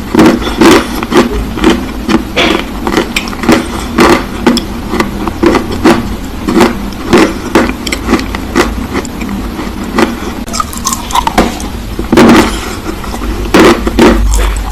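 Black clay being bitten and chewed close to the microphone: a run of sharp, irregular crunches, about one or two a second, over a steady low hum.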